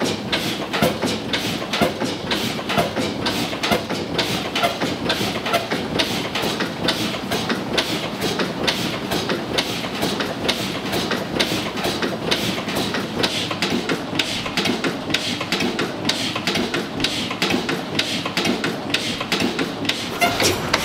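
Deutz MKH 260 single-cylinder four-stroke diesel stationary engine running, a steady rapid rhythm of clattering knocks over the engine's mechanical din.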